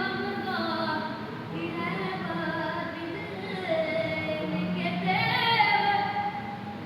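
A boy singing a qasida solo in long, drawn-out notes that slide up and down in pitch.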